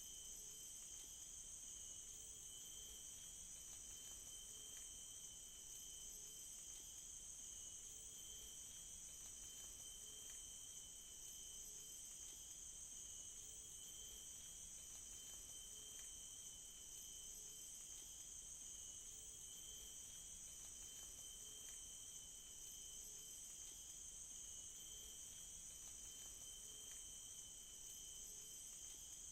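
Faint, steady night-time chorus of crickets in tropical forest: one continuous very high trill and a second lower trill. Faint low notes pulse softly underneath.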